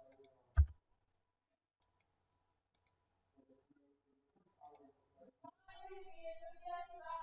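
Computer mouse clicks, mostly in quick pairs, a few times over the first five seconds, with one louder knock about half a second in. In the last second and a half a voice is heard faintly in the background.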